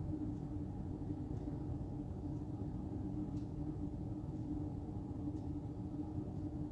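Steady low room hum and rumble with a faint, even tick about once a second.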